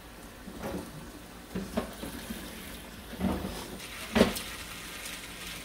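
Kitchen faucet running steadily, its stream splashing into the sink, while a man drinks straight from the stream with a few short slurping sounds, the loudest about four seconds in.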